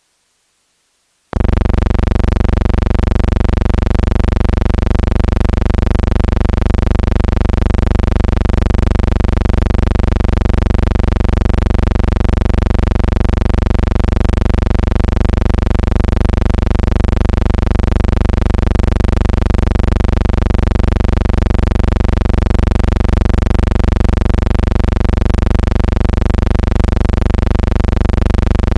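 A loud, steady electronic buzz with a stack of even overtones, starting abruptly about a second in and holding unchanged, with no pitch or rhythm changes.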